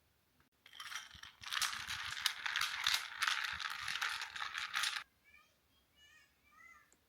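Sprinkles rattling in a shaker jar as it is shaken in quick strokes for about four seconds, then stopping.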